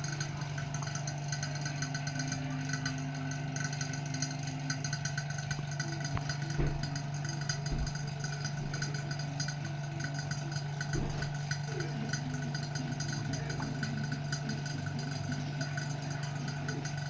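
Refrigerator compressor running with a steady low hum, with a few faint knocks and clicks.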